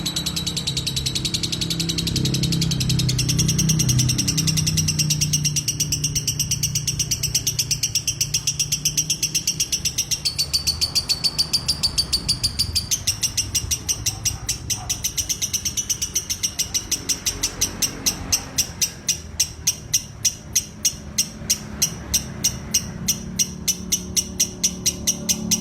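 Lovebird doing its 'ngekek' song: one long unbroken chattering trill of rapid, high, scratchy notes. In the second half it settles into a stronger pulsing beat of two to three pulses a second.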